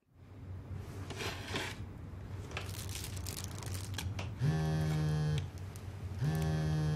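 Soft rustling and light handling of small objects, then two steady electric buzzes at one flat pitch, each about a second long with about a second between them.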